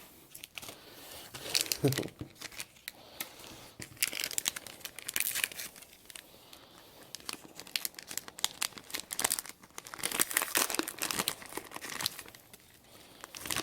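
Plastic blind-pack wrapper being torn open and crinkled by hand, in irregular crackling bursts.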